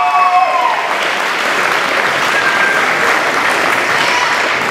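Audience applauding steadily after a fighter's name is announced. The announcer's drawn-out final call of the name trails off in the first second.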